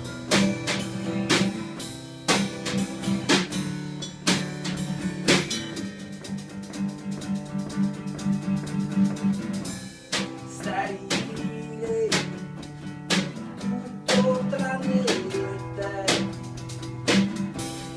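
A live band playing an instrumental passage: guitar with steady drum beats.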